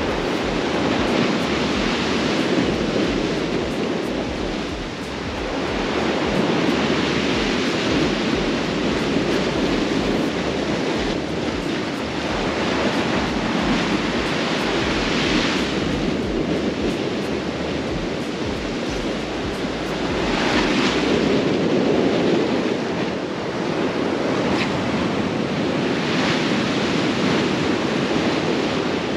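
Sea surf breaking and washing in, swelling and ebbing every few seconds, with wind rumbling on the microphone that dies down near the end.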